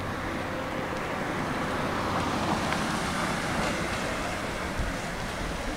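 A car driving past at low speed, its tyre and engine noise swelling about two seconds in and easing off again.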